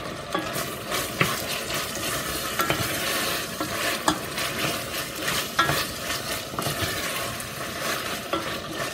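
Smoked fish and caterpillars frying in oil in a stainless steel pot, sizzling steadily while being stirred, with frequent short clicks and scrapes of the stirring utensil against the pot.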